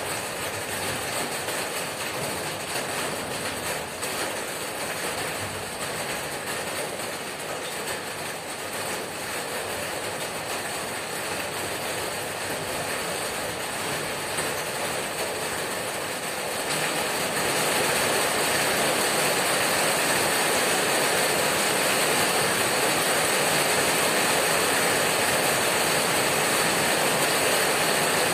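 Heavy rain hammering on a corrugated tin roof, a dense, steady patter that steps up louder about two-thirds of the way through.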